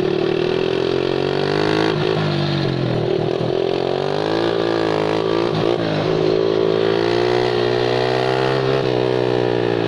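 Engine of a Chinese Nitro 125 cc automatic quad (ATV) running on the move, its pitch rising and falling with the throttle.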